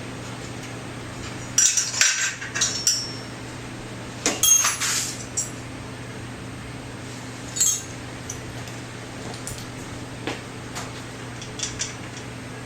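Metal tools and frame parts clinking and clattering in two short flurries, then a single clink and a few lighter ticks, over a steady low hum.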